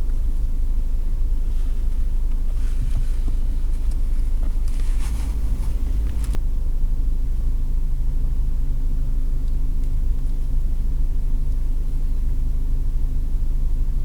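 Steady low rumble of a car heard from inside the cabin, with a couple of brief rustles in the first half and a single click about six seconds in.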